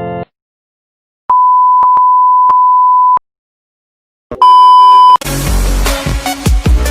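A sustained electronic beep, one steady tone held for about two seconds, then a second, shorter beep with other tones layered over it. Electronic dance music with a heavy bass beat kicks in about five seconds in.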